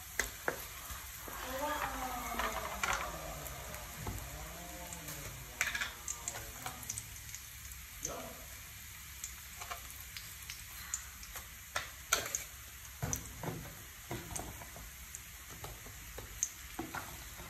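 Minced garlic and spring onion sizzling in oil in a frying pan, stirred with a wooden spatula that scrapes and taps against the pan many times. A voice-like sound is heard in the background for a couple of seconds near the start.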